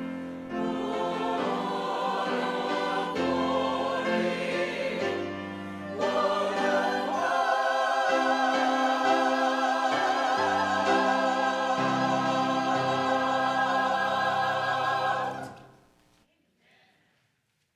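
Church choir singing the closing bars of a hymn, ending on a long held final chord that dies away about fifteen and a half seconds in, leaving near silence.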